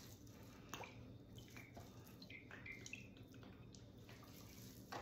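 Faint drips and glugs of olive oil pouring from a bottle onto a raw leg of lamb, with a few light clicks about a second in.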